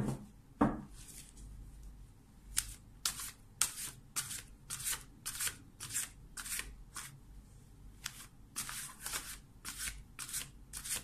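A deck of Thoth tarot cards being shuffled by hand: a couple of soft knocks near the start, then quick swishes of cards sliding against each other, about two or three a second, with a short pause in the middle.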